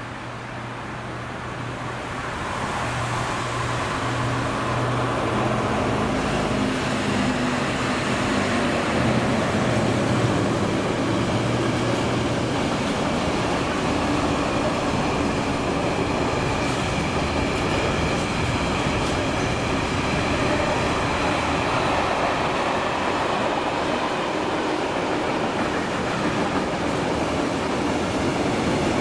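A Siemens ER 20 diesel-electric locomotive approaches and passes with a steady low engine hum that grows louder over the first few seconds. After about twelve seconds the hum gives way to the continuous rolling rumble of a long train of container wagons going by.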